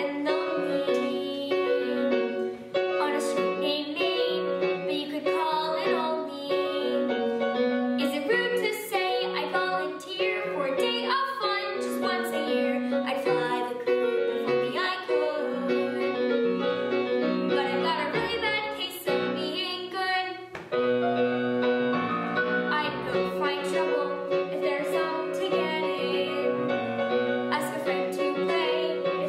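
A girl singing a musical-theatre song over a piano accompaniment.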